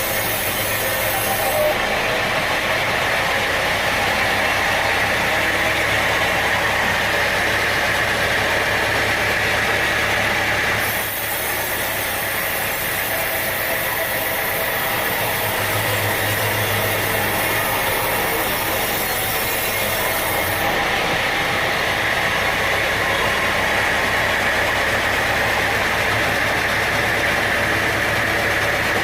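Sawmill machinery running steadily: a constant engine-like hum under a steady whirring hiss, the hiss changing about a third and again about two-thirds of the way through.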